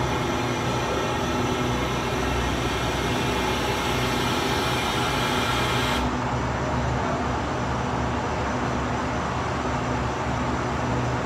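Steady mechanical hum of a stationary air-conditioned sleeper train, with low steady droning tones under it. About halfway through, the high hiss drops away and the low hum carries on.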